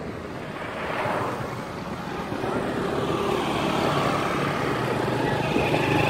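Wind rushing over the microphone of a phone held by a cyclist riding along a road. A steady hum joins in about halfway through and grows a little louder.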